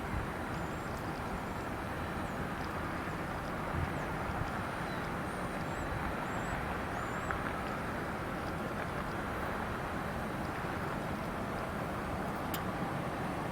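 Steady distant rumble of a Boeing 737-900ER's CFM56-7B jet engines during takeoff: an even, pitchless roar.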